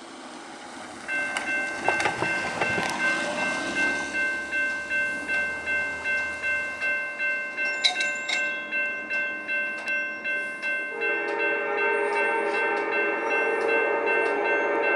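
Railroad grade-crossing warning bell starts about a second in, ringing about three times every two seconds as the crossing activates for an approaching train. From about eleven seconds in, the approaching diesel locomotive's multi-note air horn sounds steadily over the bell.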